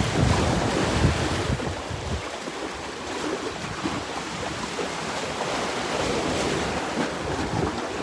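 Sea waves washing onto the shore, with wind buffeting the microphone; the gusts are heaviest in the first two seconds and then ease to a steady wash.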